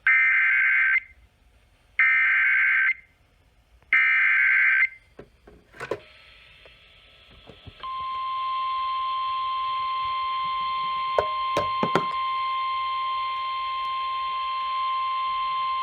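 Emergency Alert System tones over the radio: three one-second bursts of the buzzy digital SAME header, then, about eight seconds in, the single steady NOAA Weather Radio warning alarm tone over a hiss of static with a few crackles. They announce a severe thunderstorm warning.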